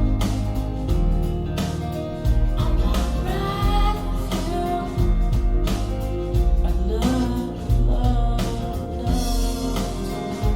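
A song with a singing voice over guitar and a heavy, regular bass beat, played back through SVS Prime tower loudspeakers.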